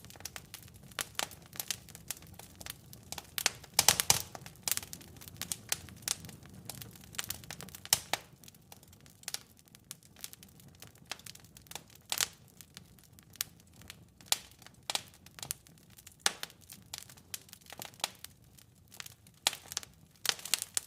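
Wood fire crackling in a fireplace: irregular sharp pops and snaps of burning logs over a faint low hiss of flame, with a denser, louder run of crackles about four seconds in.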